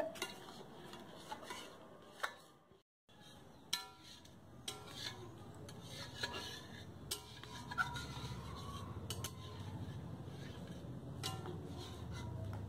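Metal ladle stirring dal in a black iron kadhai, scraping the pan and clinking now and then on its side. There is a low steady rumble underneath, and a brief drop to silence about three seconds in.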